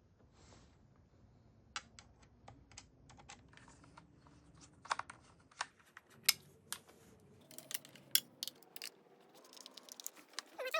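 Irregular small clicks and ticks of a screwdriver driving screws into the Dyson V10's plastic housing, coming faster and louder in the second half.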